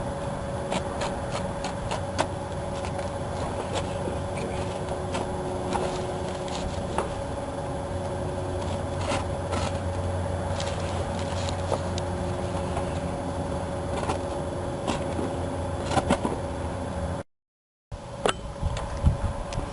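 A steady mechanical hum with a constant tone, under scattered light clicks and taps. It cuts briefly to silence near the end.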